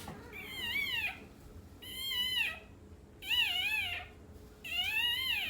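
Newborn American bully puppy crying: four high-pitched squealing cries in a row, each rising then falling, about one every second and a half.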